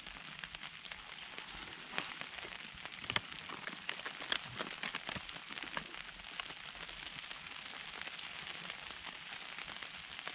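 Falling snow pattering steadily on a hammock tarp overhead, with scattered light ticks through it.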